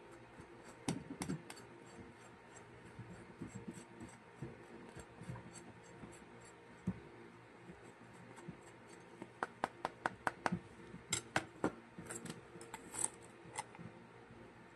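Butter knife scraping kinetic sand clay off a silicone spatula over a glass cup: soft scraping with a few sharp clicks, then a quick run of taps and clicks about nine seconds in.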